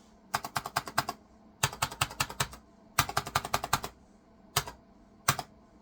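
Computer keyboard keys being pressed repeatedly: three quick runs of clicky key presses, then two single presses near the end. The key was just reseated after cleaning and now sounds way better.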